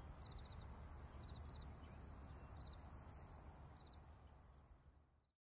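Faint outdoor nature ambience: crickets chirping in short trills over a steady high hiss and low rumble, fading out near the end.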